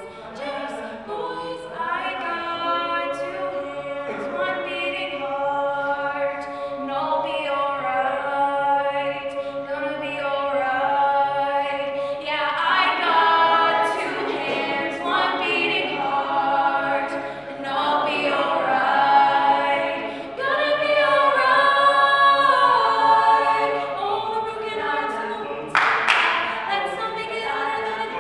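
A mixed-voice a cappella group sings a pop arrangement, a woman's lead over sustained chords from the backing singers, with no instruments. A short hissing burst comes near the end.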